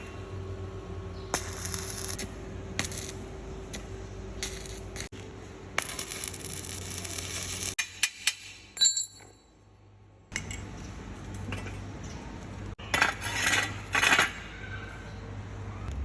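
Metal parts of a power steering pump being handled: clinks, knocks and short scraping noises over a steady low hum, dropping almost quiet for a moment about halfway through.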